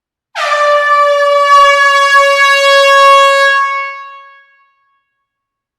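Air horn blown in a closed hall: one long, loud blast on a single steady note, its pitch dipping briefly as it starts. It holds for about three and a half seconds, then fades away.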